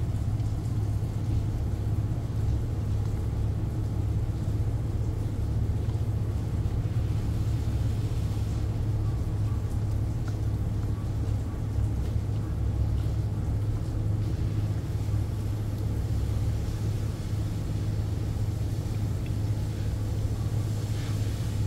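Steady low drone of a ship's machinery, an even hum that holds without change throughout.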